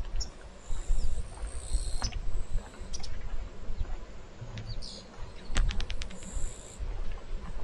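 Wild birds giving short high chirps a second or two in and again near the end, over an uneven low rumble, with a quick run of about six sharp clicks a little past halfway.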